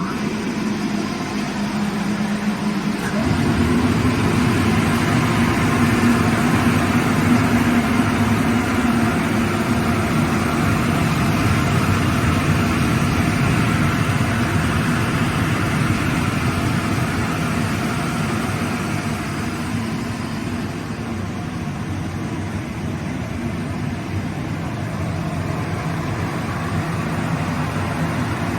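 CECCATO 30 kW (40 hp) rotary screw air compressor with an Atlas Copco air end and a Marelli electric motor, running steadily just after being started. About three seconds in, it gets louder and fuller.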